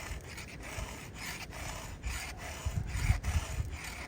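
Hand file rasping over a chainsaw chain's cutters in quick short strokes, about three a second, with ice frozen onto the chain. A few dull low bumps about three seconds in.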